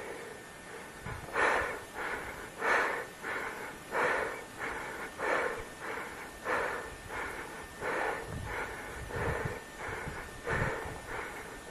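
A person breathing hard close to the microphone: quick, rhythmic, noisy in-and-out breaths, about one full breath every second and a quarter.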